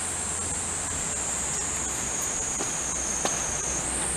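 Insects buzzing in one steady high-pitched drone that dips slightly in pitch and jumps back up near the end, with a faint click about three seconds in.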